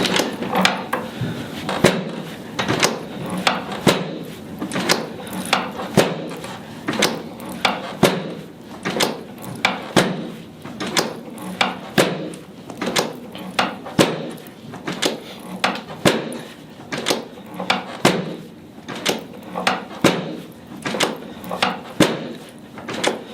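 Chiropractic drop-table sections releasing under thrusts on the lower spine, a sharp clack about once a second, more than twenty times.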